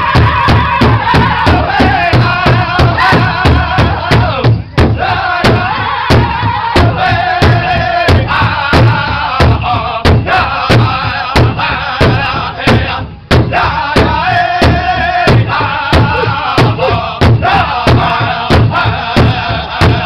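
Powwow drum group: several men strike a large hide-headed drum in unison in a steady, even beat while singing together in a high-pitched style. The singing breaks off briefly twice while the drumbeat carries on.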